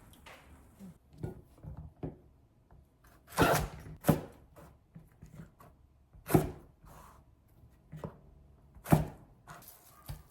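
Irregular sharp knocks and clacks, about a dozen, the loudest about three and a half, six and a half and nine seconds in.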